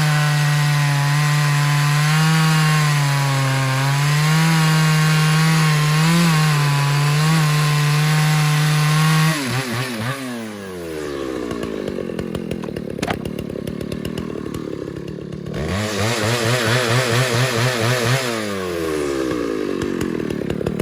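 Husqvarna 2100CD two-stroke chainsaw with a 24-inch bar running at full throttle in a cut through hardwood, its pitch wavering under load. About nine seconds in the throttle is released and the engine drops to idle. It is revved once more for a few seconds and drops back to idle near the end.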